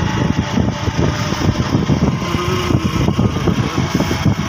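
Motorcycle engine running as the bike rides along, mixed with rough, gusting wind noise on the microphone.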